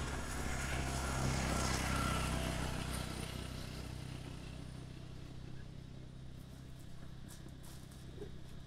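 A motor vehicle's engine passing: it grows louder over the first two seconds or so, then slowly fades while a low hum carries on.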